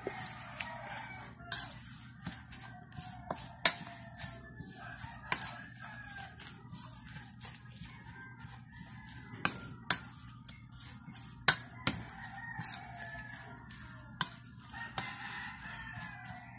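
Metal spoon clinking and scraping against a ceramic bowl while beating raw eggs into chopped moringa leaves, with irregular sharp clicks, a few of them loud. Chickens call in the background.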